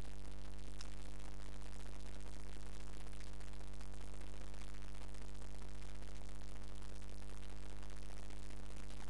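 Steady low electrical hum over even hiss, unchanging throughout, with a single faint click about a second in.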